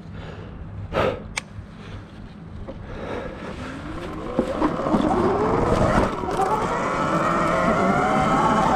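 Sur Ron Light Bee X electric dirt bike's motor whine rising in pitch as the bike speeds up from about three seconds in, then holding fairly steady at speed. Two sharp knocks about a second in.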